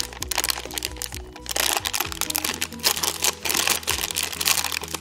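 Background music with a steady tune, over loud crinkling and crackling of a thin clear plastic bag being pulled and torn open by hand.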